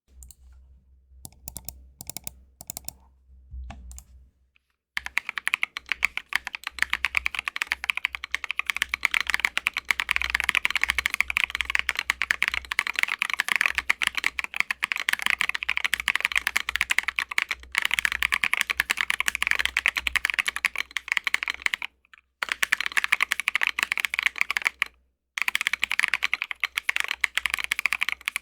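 Typing on an Arisu ergonomic mechanical keyboard fitted with lubed and filmed Drop Holy Panda tactile switches, an acrylic plate, Durock V2 stabilizers and MT3 keycaps, without its PE foam mod. A few separate keystrokes come first, then fast continuous typing from about five seconds in, broken by two short pauses near the end.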